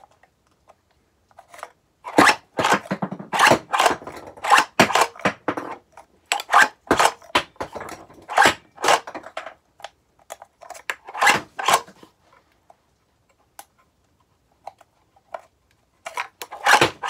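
Plastic clicks, knocks and rattles from a 3D-printed 37 mm pump-action rotary flare launcher being worked to unload it with its gate open. The clicks come in a dense run for several seconds, stop, and start again near the end.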